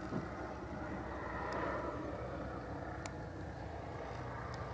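Cessna 172R's piston engine and propeller droning steadily at reduced power as the aircraft comes in on final approach to land. A few faint clicks sound over it.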